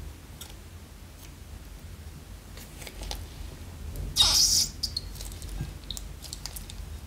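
Small plastic zip-lock bag crinkling and crackling as it is handled and squeezed, with a louder half-second burst about four seconds in as red liquid is squeezed out of its corner onto a glass plate.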